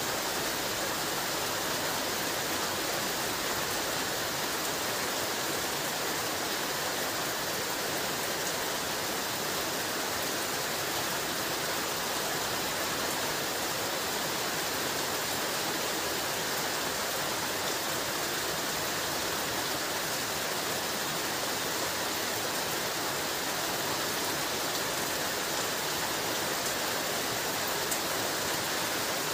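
Heavy rain falling steadily, an even dense hiss with no thunder.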